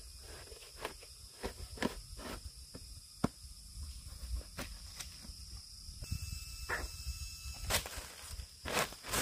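Dry leaf litter and stiff rolled tree bark crackling and clicking as they are handled and stepped on, in scattered sharp snaps. A steady high-pitched drone runs underneath. Near the end louder rustling, as a woven plastic feed sack is moved over the dry leaves.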